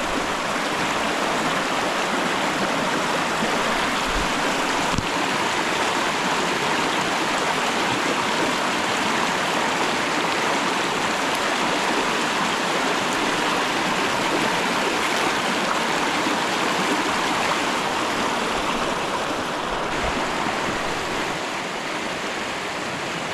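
A creek rushing over a shallow rocky run, a steady hiss of running water.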